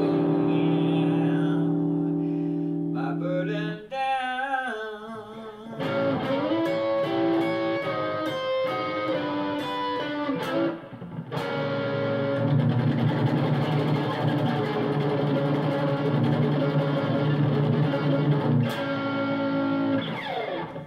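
Electric guitar playing the last bars of a gospel shuffle. It holds a chord, plays wavering vibrato notes about four seconds in, then single-note lines and sustained chords, and stops at the end.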